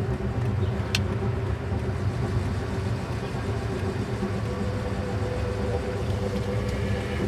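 Car engine running with a steady low hum, and a single click about a second in.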